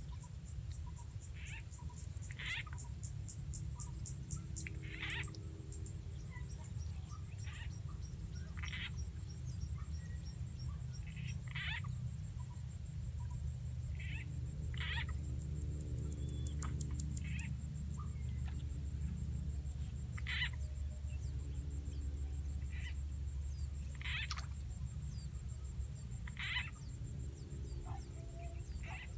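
Frog calls, short croaks every second or two, from a frog call recording played on a loop to lure frogs, over a steady high buzz that cuts in and out every few seconds and a constant low rumble.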